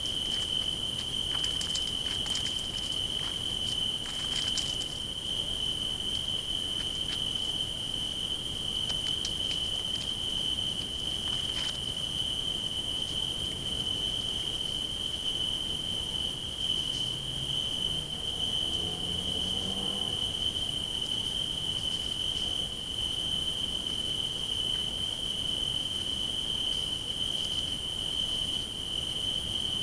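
Crickets trilling steadily in a continuous high-pitched chorus at night, with a few faint ticks.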